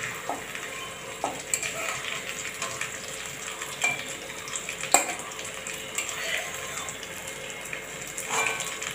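Chhana patties frying in hot oil in a metal kadai with a steady sizzle, while a metal spatula scrapes and clinks against the pan as they are lifted out one by one, with a sharp clink about five seconds in.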